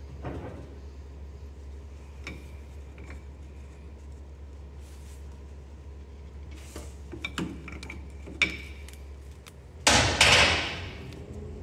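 A steel wrench clicking and clanking on the hydraulic hose fittings of an excavator swing motor as a line is loosened, over a steady low hum. Near the end comes a louder burst of noise lasting about a second.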